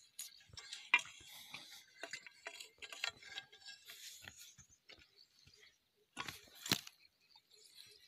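Metal blade of a long-handled hoe scraping and chopping through dry, stony soil and dry plant stalks, a run of short scrapes and clicks. Sharper strikes come about a second in and again near the end.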